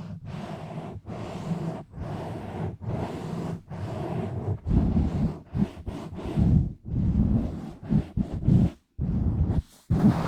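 Rubbing and scratching directly on a bare, uncovered microphone, in strokes about once a second at first, then quicker and more irregular from about halfway, with a couple of brief breaks near the end.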